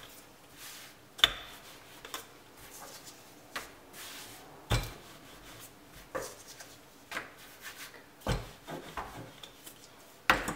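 Wooden rolling pin rolling out yeast dough on a floured countertop, with hands pressing and smoothing the dough: soft rubbing broken by several short knocks of the pin and hands on the counter.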